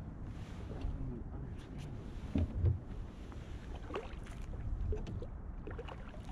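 Handling noise in a kayak while an angler fights a hooked fish: a steady low rumble with scattered knocks and a few short squeaks, the loudest thumps about two and a half seconds in.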